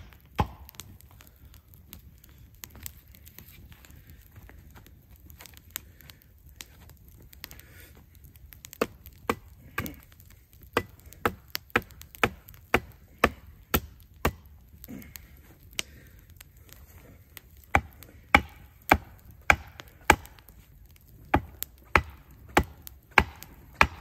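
Hatchet blows on a green wooden stake: sharp wooden knocks, a few near the start, then runs of strikes about two a second, as the stake is pointed and driven into the ground beside the fire.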